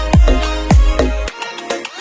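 Electronic background music with a heavy beat of deep bass-drum hits about twice a second; the bass drops out about a second and a half in, leaving the lighter melody.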